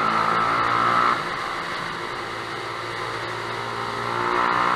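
2011 Yamaha YBR125's single-cylinder engine through a Lextek stubby aftermarket exhaust, ridden inside a road tunnel. Louder for the first second, it drops off suddenly, then builds again near the end.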